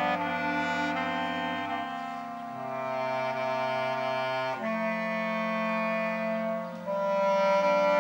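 Clarinet ensemble of soprano clarinets and a bass clarinet playing held chords, moving to a new chord every second or two.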